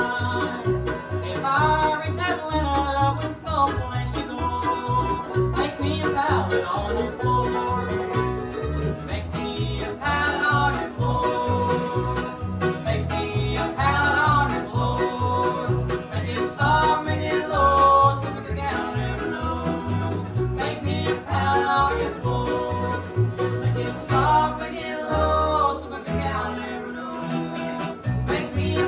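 Live acoustic string band playing an instrumental break in a slow blues song: a steady bass pulse under a melody line that slides up and down in pitch.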